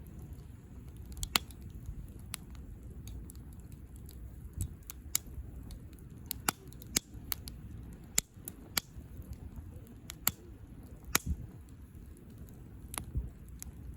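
Wood campfire crackling, with irregular sharp pops and snaps of burning wood over a steady low background.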